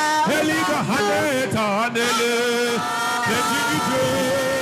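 Worship chant sung with long held notes that slide up and down between pitches, several voices or parts sounding together.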